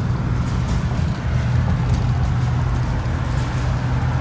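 Steady road noise inside a Chevrolet Silverado pickup's cab at highway speed: a continuous low drone of engine and tyres with a constant low hum.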